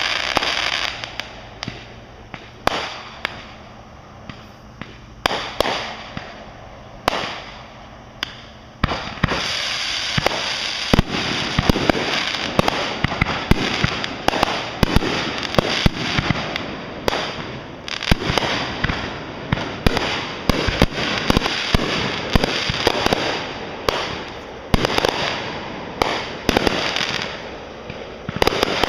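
Fireworks going off: scattered bangs and crackle at first, then a dense run of rapid bangs and crackling from about nine seconds in.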